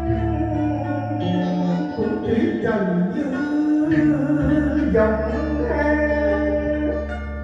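Male vocalist singing a Vietnamese cải lương duet song over backing music with plucked strings and a steady low bass.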